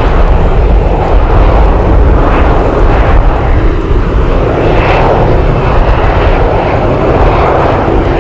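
Boeing 737-800 airliner's CFM56 turbofan engines running loud and steady as the jet rolls out on the runway after landing.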